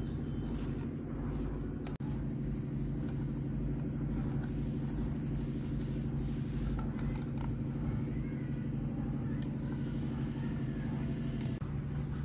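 Steady low drone of running machinery, with a few faint clicks and taps over it.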